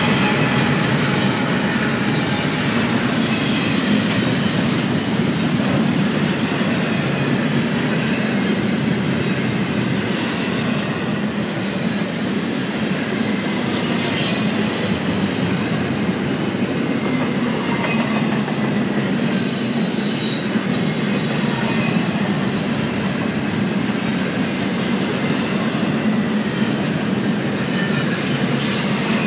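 A BNSF double-stack container freight train rolling past steadily, its wheels running on the rails. A thin, high wheel squeal comes in partway through.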